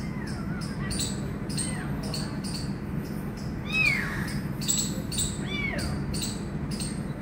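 A very young orange kitten mewing: four short, thin cries that rise and fall, the loudest about four seconds in. Behind it, a high chirping repeats about twice a second.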